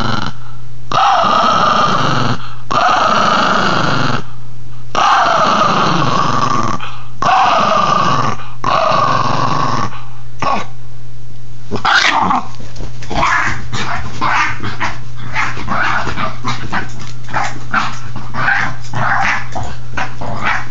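Miniature Pinscher making long, drawn-out growling calls, each about a second long and dropping in pitch, with short pauses between. About halfway through it switches to quick short yips and barks, two or three a second.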